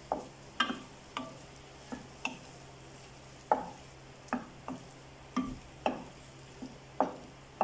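A spoon stirring tofu pieces in sauce in a frying pan, knocking sharply and irregularly against the pan about a dozen times.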